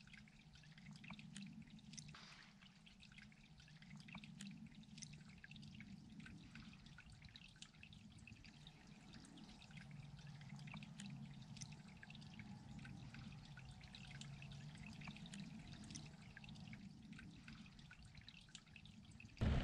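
Near silence: faint outdoor ambience with a low hum and many scattered faint ticks.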